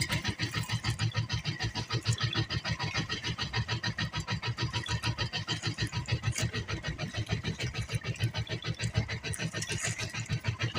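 Outrigger fishing boat's engine running steadily at low speed, with a fast, even beat of about six pulses a second.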